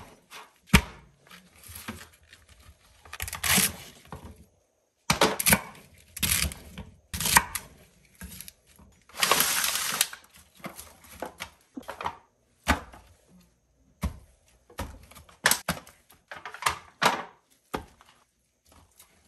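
Chef's knife chopping carrots on a wooden cutting board: a run of separate chops and knocks. Later come short rustling bursts and soft thumps as vegetables and raw beef ribs are laid into an aluminium foil roasting pan, with several abrupt cuts to silence.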